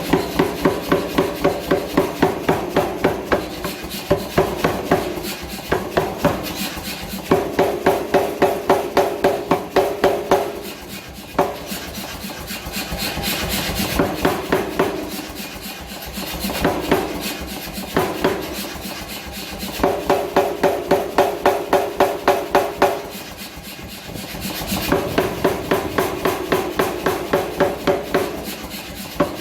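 Mechanical power hammer forging a hot H13 tool-steel bar: runs of evenly spaced blows, about three to four a second, each run lasting a few seconds with short pauses between, over a steady running drone.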